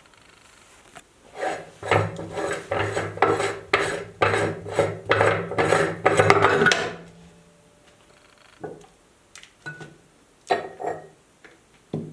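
Meat grinder working a toy through: a run of rhythmic scraping, grinding strokes over a steady low hum for about five seconds, then a few scattered knocks.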